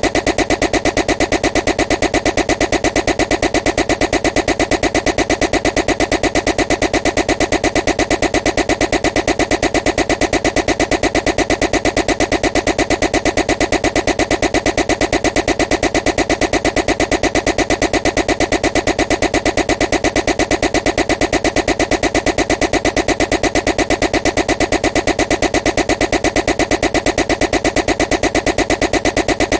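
A loud, harsh buzzing noise pulsing evenly about five times a second, repeating without change as a looped annoying sound.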